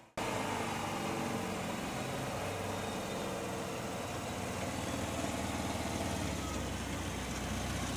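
2007 Mazda RX-8's twin-rotor rotary engine idling steadily.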